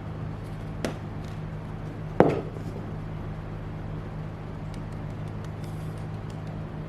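Plastic hair dryer being handled while baby powder is loaded into it: two sharp clicks or knocks, a small one about a second in and a louder one a little over two seconds in, over a steady low hum.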